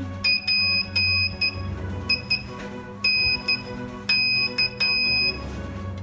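Homemade Morse code buzzer, powered by two batteries and keyed by touching two clips together, beeping a steady high tone in short and long beeps. The four groups spell P-I-N-K (dit-dah-dah-dit, dit-dit, dah-dit, dah-dit-dah).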